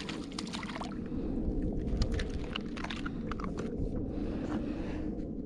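A small fish splashing at the surface and being swung up onto a plastic fishing kayak, with scattered sharp clicks and taps as it is landed and handled. A steady low rush of wind and water runs underneath.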